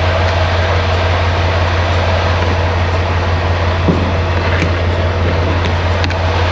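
Semi-truck diesel engine idling with a steady low hum, a few faint clicks near the end.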